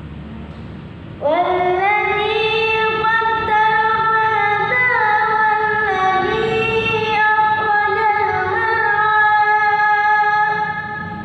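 A boy's voice chanting a Quran recitation in the melodic tilawah style. He enters about a second in and draws out one long phrase in held notes with slow pitch steps and ornaments, tailing off near the end.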